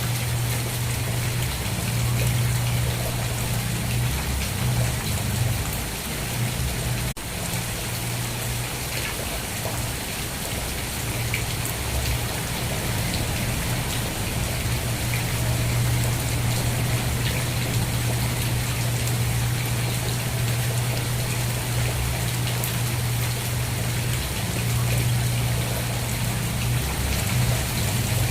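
Steady heavy rain falling and pattering on a surface, with a low steady rumble beneath it and a brief dip about seven seconds in.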